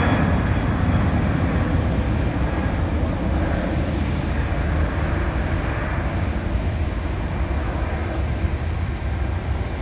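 Boeing 767 freighter's twin jet engines at climb power just after takeoff: a deep, steady rumble that slowly fades as the aircraft climbs away. A faint high whine dies out in the first second.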